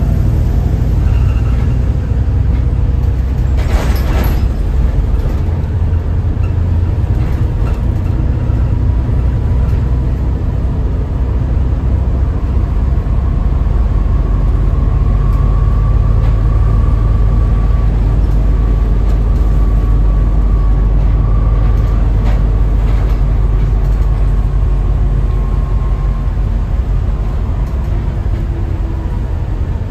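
Volvo B7TL double-decker bus on the move, heard from the upper deck: its straight-six diesel and the road give a steady low rumble. There is a short hiss about four seconds in and a faint whine through the middle.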